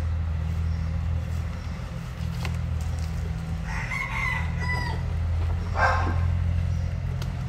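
A rooster crows once, about four seconds in, over a steady low engine drone. Shortly after, there is a brief rustle as loose soil is crumbled off a root ball by hand.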